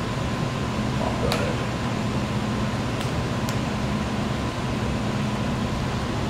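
Steady fan-like mechanical hum at an even level, with three faint ticks in the middle of it.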